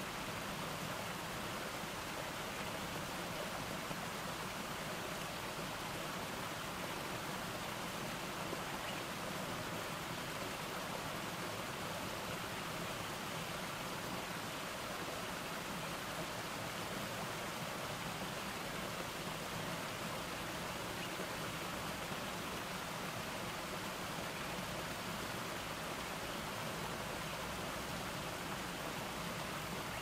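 Water from a small garden cascade splashing over rock ledges into a shallow stream: a steady, even rush.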